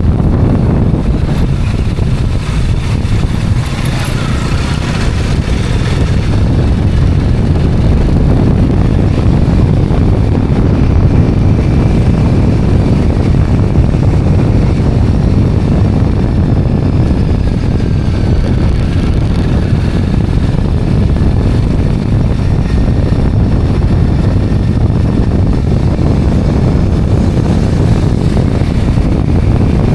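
Steady low rumble of wind buffeting the microphone on a moving motorbike, mixed with engine and road noise.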